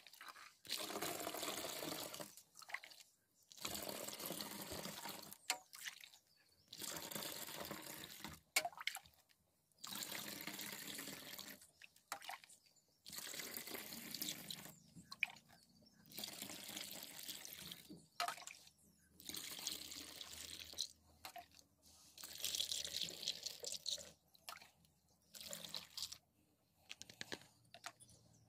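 Fresh cow's milk poured through a plastic funnel into a plastic bottle, in a series of pours a second or two long with short pauses between them as more milk is scooped from the pail.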